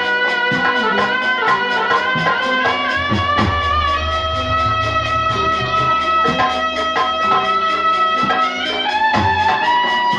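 Instrumental music: a sliding melody line holds one long note through the middle and steps higher near the end, over a quick, steady percussion beat.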